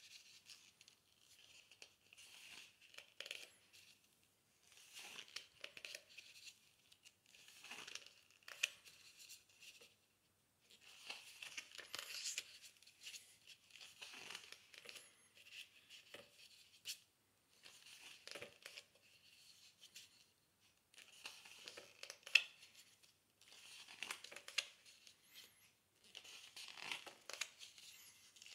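Pages of a large illustrated book being turned by hand: paper rustling and flapping in short bursts every two to three seconds, with brief pauses between turns.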